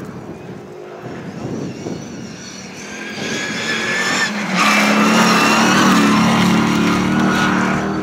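Short-wheelbase Land Rover Defender's engine revving hard as it slides through a loose dirt corner, with the tyres scrabbling on the gravel. The engine grows louder and rises in pitch, breaks off briefly a little over four seconds in, then stays loud as it passes.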